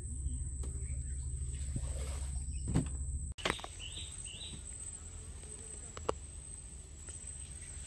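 Mangrove-channel ambience: a steady high-pitched insect drone over a low rumble, with three short rising bird chirps about halfway through and a couple of sharp clicks a little later.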